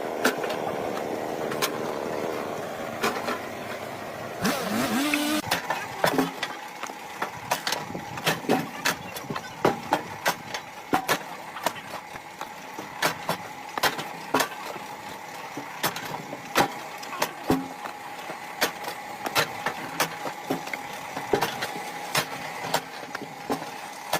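Firewood being split: frequent sharp knocks and cracks, irregular at about one or two a second, over a steady machine hum.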